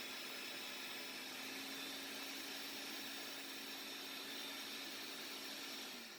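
Countertop blender running steadily, puréeing tomatillos, serrano chiles, garlic and onion into a green salsa; it is switched off near the end and the motor winds down.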